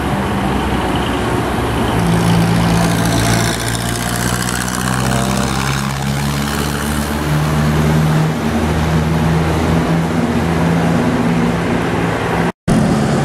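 Vintage farm tractor engines running as tractors drive along the road, a low, steady engine note that steps up and down in pitch. The sound cuts out for a split second near the end.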